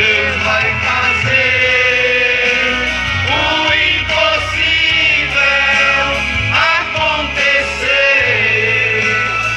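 Amplified gospel praise: a man sings a hymn into a handheld microphone over a loudspeaker, with backing music under the held, gliding vocal lines.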